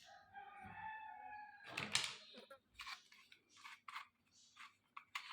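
A held pitched tone for about a second near the start, then a run of short light clicks and taps as small plastic toy kitchen pieces are handled.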